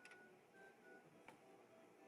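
Near silence with two faint, light clicks about a second apart.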